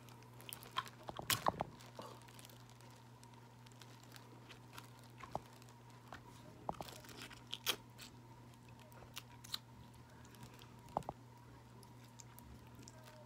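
Crab leg shells being cracked and pulled apart by hand and the meat eaten: scattered sharp cracks and snaps, a quick cluster about a second in, then single cracks every second or two, with chewing between them.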